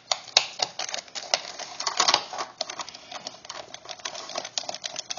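Hand screwdriver turning out the mounting screw of a fluorescent light's ballast in a plastic aquarium hood: a run of irregular small clicks and scrapes as the tip works in the screw head.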